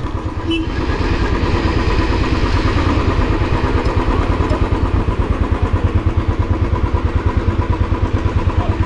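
Royal Enfield Classic 350's single-cylinder engine running steadily as the motorcycle is ridden, with an even, rhythmic exhaust beat.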